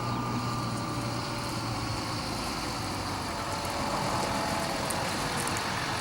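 Tractor engine running steadily at an even pitch.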